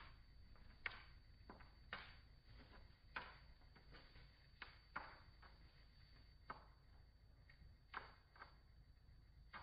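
Near silence broken by faint, irregular short clicks and rustles, roughly one a second.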